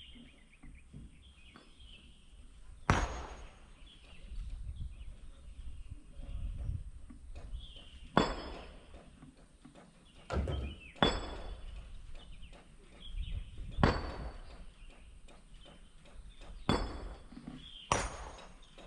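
Sharp clanks and knocks with a short metallic ring, about seven of them at irregular intervals, over a low steady rumble.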